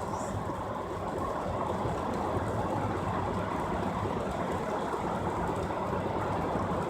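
Steady low rumbling noise with a light hiss, even throughout, like the running noise of a vehicle or a machine.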